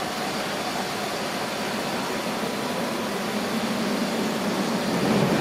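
Docklands Light Railway train running along the track: a steady rumble and hum that grows louder toward the end.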